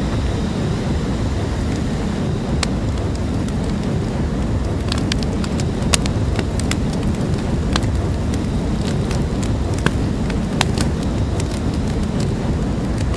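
Flamethrower sound effect firing one long continuous jet: a steady, loud rushing of flame with a deep rumble, broken by scattered sharp crackles and pops.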